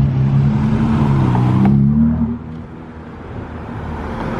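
A sports car's engine pulling away and passing, its deep note rising slightly before fading about two seconds in, leaving quieter road traffic.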